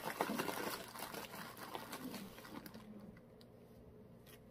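Small plastic lip balm tubes clicking and rattling lightly as they are handled and set into a filling tray, fading out after about two and a half seconds.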